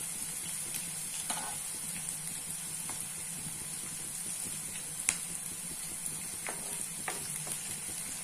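Onions, peanuts and curry leaves sizzling steadily in hot oil in a non-stick wok, with a few sharp clicks of a metal slotted spatula against the pan, the loudest about five seconds in.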